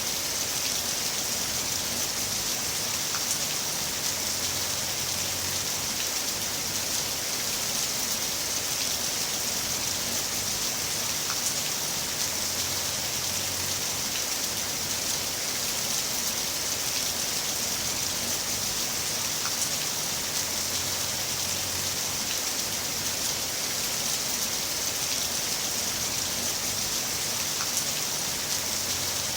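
Heavy rain falling steadily: an even, dense hiss sprinkled with fine ticks of single drops.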